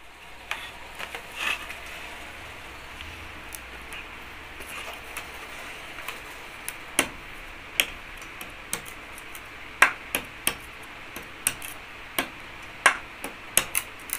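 A curved machete blade striking the slats of a wooden packing crate to break it open: a few light taps, then from about six seconds in, sharp knocks roughly once a second, coming faster near the end.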